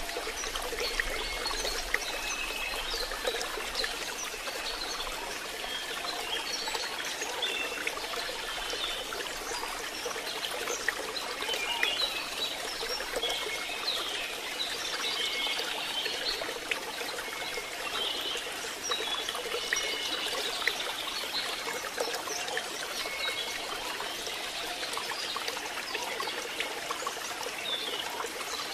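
Steady rain falling, a continuous even hiss, with short high squeaks now and then.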